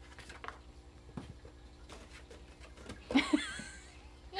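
Faint scattered taps and scuffs from cats pawing at each other in a cardboard box, then about three seconds in a brief loud vocal outburst with a wavering pitch.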